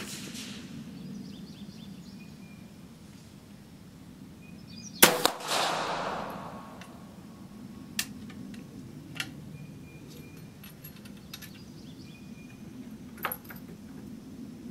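A single rifle shot from a Lyman Ideal Sharps in 38-55 about five seconds in, its report trailing off in an echo over a second or so. Afterwards come a few short metallic clicks as the single-shot falling-block action is handled.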